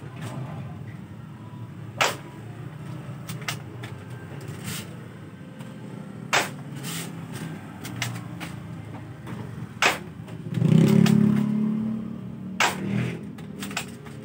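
D'Cobra spring-type airsoft rifle being fired and re-cocked: sharp snaps every few seconds, four of them strongest, with lighter clicks between. Underneath runs a steady engine hum that swells loudly for about a second and a half just past the middle.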